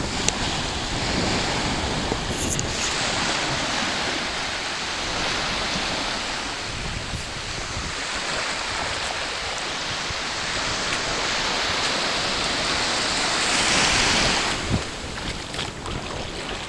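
Atlantic surf washing onto a beach, with wind buffeting the microphone; the wash swells louder near the end, then falls away.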